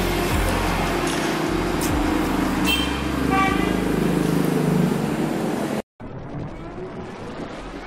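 Roadside traffic noise with running vehicle engines and a short vehicle horn toot about three and a half seconds in. The street sound cuts off abruptly near six seconds, and quieter music follows.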